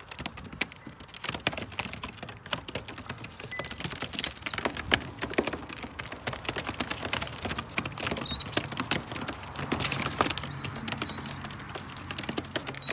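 Racing pigeons pecking feed from a man's hand: a dense, rapid run of beak clicks and taps against the palm. A few short high chirps come through about four, eight and eleven seconds in.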